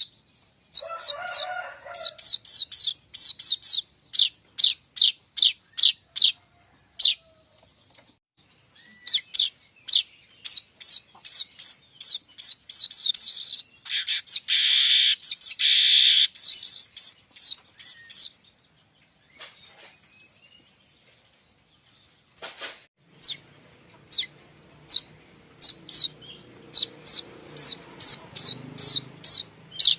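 Streaked weaver (manyar kembang) calling: runs of short, sharp, high chirps, about two a second, broken around the middle by a harsh buzzing hiss that lasts a few seconds. A faint low hum joins the chirps in the last quarter.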